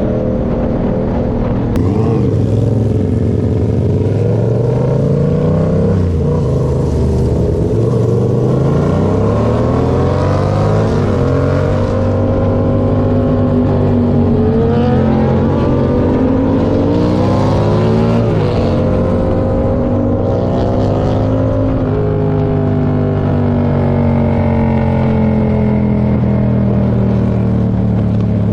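Yamaha MT-07's parallel-twin engine through a Toce aftermarket exhaust, pulling up through the gears: the pitch rises again and again, dropping at each shift, then holds fairly steady near the end.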